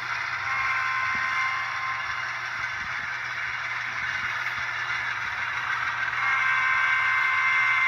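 HO scale ES44 model diesel locomotive's DCC sound decoder playing engine sound through its small speaker: a steady tinny hiss with a thin whine, which grows louder about six seconds in.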